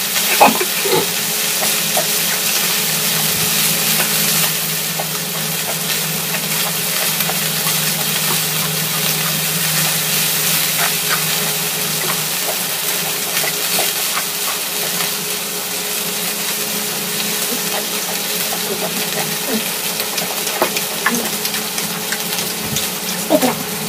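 Pork neck, mushrooms and onions sizzling steadily on a hot grill pan, with a few faint clicks now and then.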